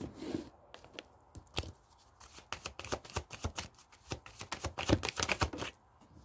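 A deck of oracle cards being shuffled by hand: a string of quick card slaps and flicks, getting denser and louder toward the end, then stopping.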